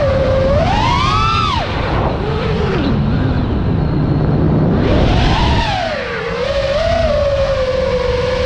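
iFlight Nazgul5 FPV quadcopter's brushless motors on 6S whining, the pitch climbing sharply with a burst of throttle about a second in, sinking low for a couple of seconds as the throttle comes off, then climbing again and settling into a steady whine, over a low rush of noise.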